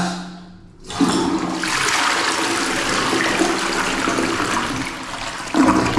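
Two-piece toilet flushing: water rushes and swirls down the bowl, starting suddenly about a second in and running steadily.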